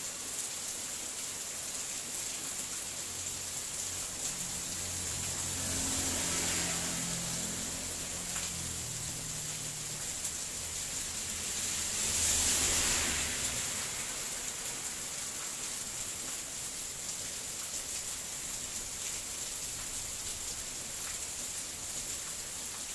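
Steady background hiss, with a low motor hum that swells twice in the middle and then fades out.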